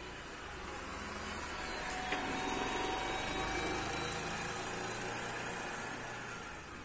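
A motor vehicle's engine swelling to a peak a few seconds in and then fading away, like a vehicle passing by.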